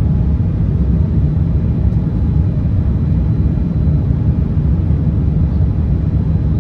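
Steady low rumble of an Airbus A350-900's Rolls-Royce Trent XWB engines and the rush of air, heard from inside the cabin during the climb after takeoff.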